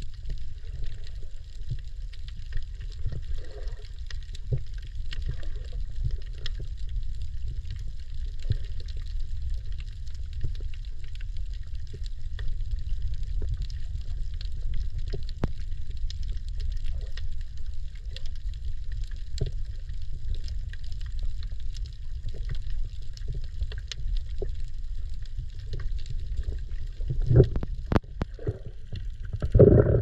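Underwater ambience picked up by a camera held below the surface: a steady low rumble with many faint scattered clicks, and a few louder surges near the end.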